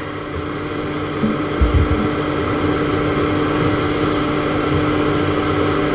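Steady background hum with a constant tone, growing a little louder over the first couple of seconds and then holding. A soft low bump comes about a second and a half in.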